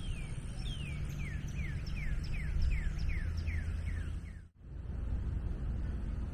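A bird singing a fast series of identical down-slurred whistles, about two or three a second, over a low steady rumble. The sound drops out abruptly a little over four seconds in and comes back as the rumble alone, with no more song.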